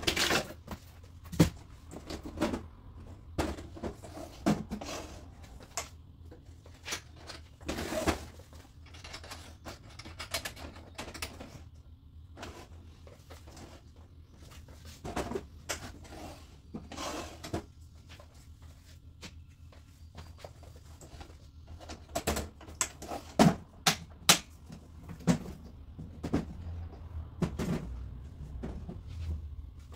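Matrix Pro rigid feeder tray being handled: its hard case lid shut and the case and its folding arm moved about, giving scattered clicks and knocks. The knocks come thickest early on and again in a tight run of sharp knocks about three-quarters of the way through.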